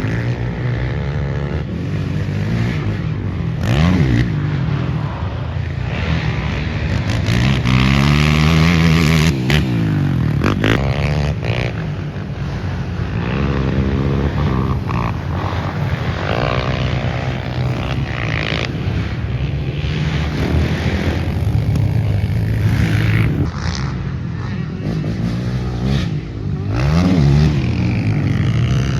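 Racing quad (ATV) engines revving hard and passing close, the pitch climbing and falling again and again as they accelerate, shift and go by.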